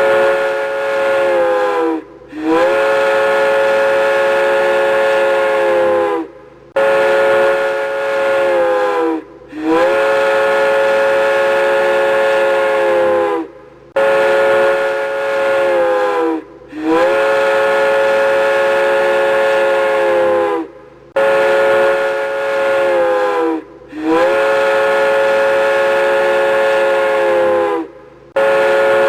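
Indian Railways train horn sounding over and over, a short blast of about two seconds alternating with a longer one of about four. Each blast is a chord of several steady tones that dips in pitch as it dies away.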